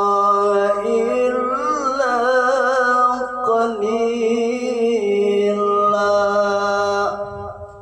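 Male qari reciting the Quran in melodic tilawah style, holding long notes with a wavering ornamented run in the middle. This is the closing phrase of the recitation, and its last note fades out about seven seconds in.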